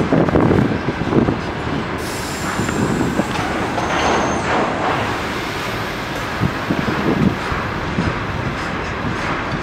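Container freight train's loaded flat wagons rolling past at speed: a steady rumble with repeated clacks as the wheelsets cross rail joints, and a couple of faint, brief high wheel squeals.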